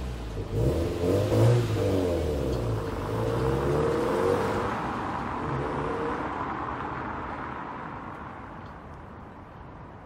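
Subaru WRX STI's turbocharged flat-four engine pulling away, revving up in a few rising pulls, then fading steadily as the car drives off into the distance.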